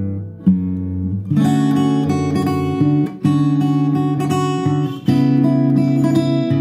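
Background music led by acoustic guitar: separate chords at first, then fuller, continuous playing from about a second and a half in.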